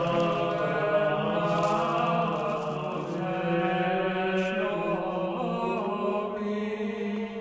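A choir singing slowly in long, held notes, like a church chant.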